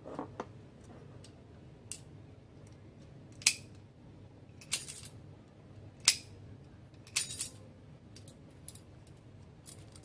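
Metal door lock set being handled: a series of sharp metallic clicks and clinks, a second or so apart, the loudest about midway.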